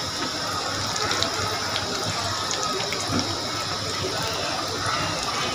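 Breadcrumb-coated bread cubes deep-frying in hot oil in a wok over a low-medium flame: a steady sizzle with small crackles.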